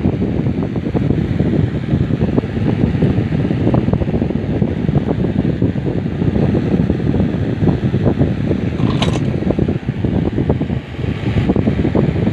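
Steady rumble of moving air buffeting the microphone, with one sharp click about nine seconds in.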